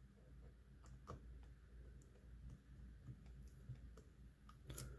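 Near silence with faint, scattered small clicks from fingers handling the display cable connector as it is lined up and pressed onto the back of a replacement laptop LCD panel.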